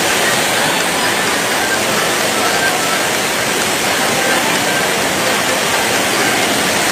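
Steady, loud rushing hiss.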